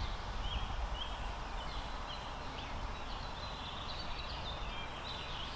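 Small birds chirping in quick short notes, more of them in the second half, over a steady low rumble of outdoor background noise.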